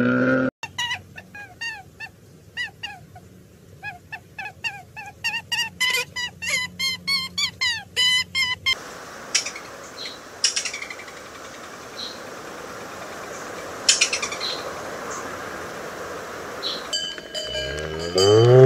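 A rapid run of short, high, falling chirps, several a second, for about eight seconds. Then a steady outdoor background with a few brief high notes and clicks. Near the end a cow begins to moo, rising in pitch and getting loud.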